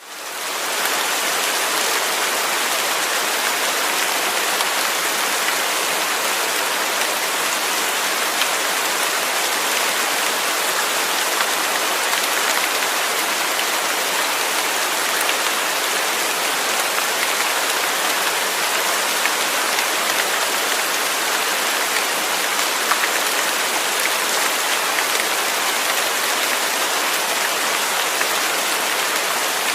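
Steady rain without thunder: a dense, even hiss of falling rain with fine scattered drop ticks, fading in over the first second.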